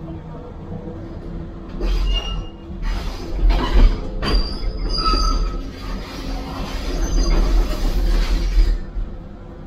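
Excavator demolishing a concrete building with its breaker attachment, heard from inside the cab. From about two seconds in until near the end, the engine works under load over crunching concrete and short high-pitched metallic screeches, then drops back to a steady idle rumble.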